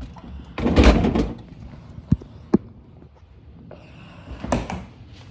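Knocks and handling noises: a loud scuffing rush about a second in, two sharp knocks about half a second apart, and another short burst near the end.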